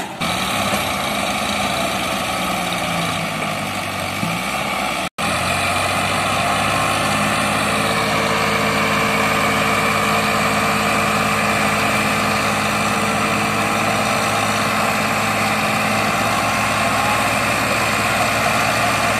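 Sonalika diesel tractor engines running hard while pulling a mud-stuck loaded trolley. The engine pitch dips and rises in the first few seconds, then holds steady after a momentary break in the sound about five seconds in.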